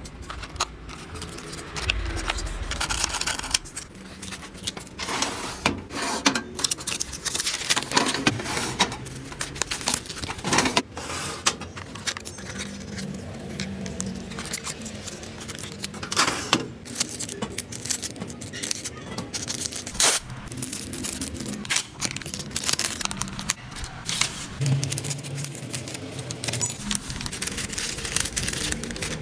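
Hand-packing sounds: small hard plastic items clicking and clattering against each other, with scraping and rustling of packaging, in an irregular stream.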